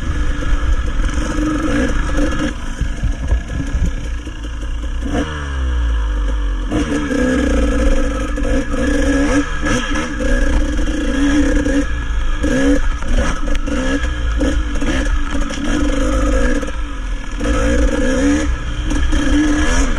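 Dirt bike engine revving up and down as the throttle is worked along a rough trail, its pitch rising and falling over and over.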